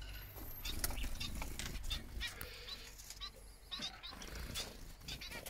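Small aviary finches chirping: many short, high calls overlapping, several a second.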